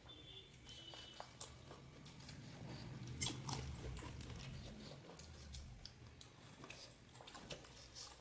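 Crisp panipuri shells being bitten and chewed: a run of small crunches and crackles, the loudest about three seconds in.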